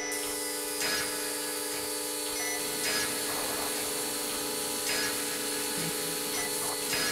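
A steady hum of several held tones, with a brief swishing pulse about every two seconds.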